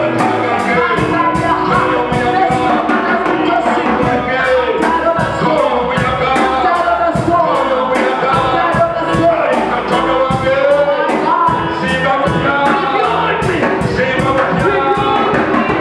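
Worship music: voices singing over a band with a steady drum beat.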